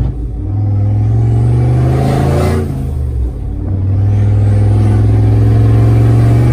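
Turbocharged Chevrolet truck engine heard from inside the cab while driving on a freshly installed, not yet tuned turbo kit. It pulls under throttle, briefly dips about three seconds in, then runs on in a strong steady drone.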